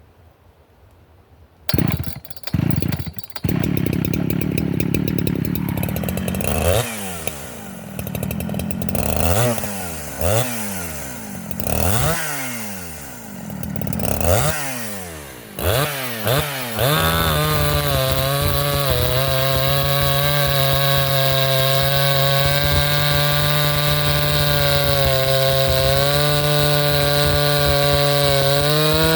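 Two-stroke chainsaw starting up about two seconds in, blipped up and down several times, then running steadily at high revs from about seventeen seconds on.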